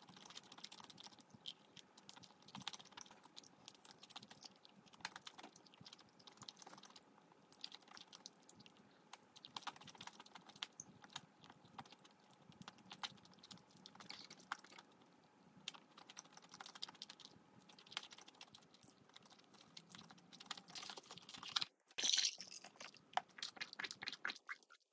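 Close-miked eating: chewing with many small, quick clicks and crunches, fairly faint, louder for a moment near the end.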